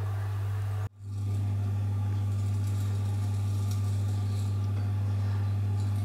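Electric potter's wheel motor running with a steady low hum. The sound drops out for an instant about a second in.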